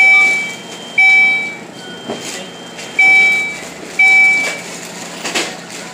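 Electronic beeper sounding loud, identical beeps about once a second, each about half a second long and fading away, with one beep skipped about two seconds in.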